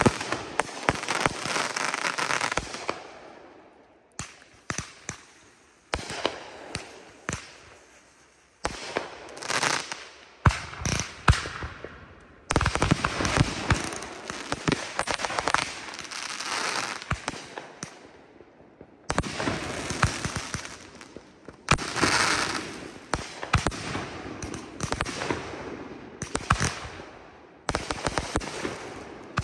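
Consumer 1.4G aerial fireworks firing in rapid volleys: sharp launch shots and overhead bursts with crackling. The barrages come in several waves, each followed by a brief lull.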